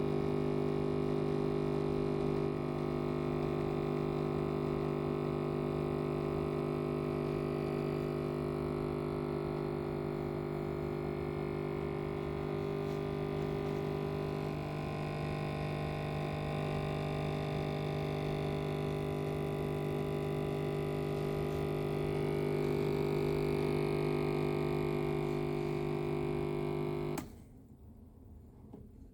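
Electric coffee machine running with a steady mechanical hum, then cutting off abruptly near the end.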